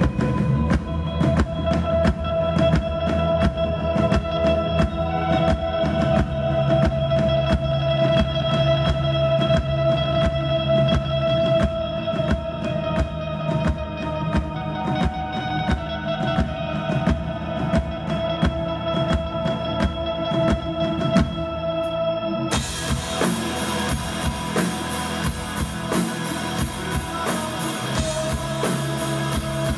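Live rock band playing an instrumental passage: a drum kit keeps a steady beat under long held instrumental tones. About two-thirds of the way through the sound turns brighter and fuller.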